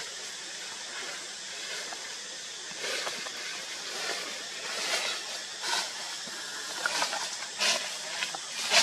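Steady hiss of outdoor ambience with rustling and crackling of leaves and branches. The rustles come in short bursts that grow louder and more frequent in the second half.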